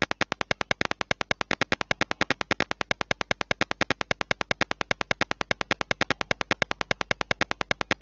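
Simulated piezo buzzer in Tinkercad sounding as a steady rapid clicking, about ten clicks a second, driven by the high output of the 74HC32 OR gate with both switch inputs at logic high.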